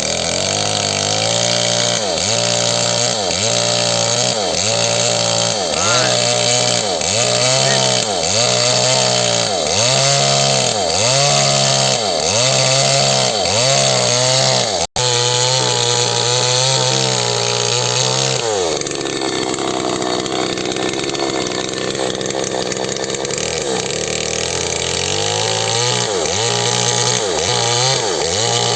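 Small chainsaw running hard through wood, its engine pitch sagging and recovering in a regular rhythm about once a second. Partway through the engine settles to a lower, steadier speed, then picks up again near the end.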